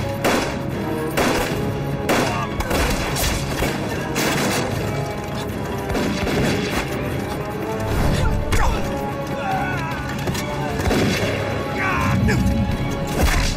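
Dramatic film score under a gunfight, with repeated pistol shots and heavy booming impacts.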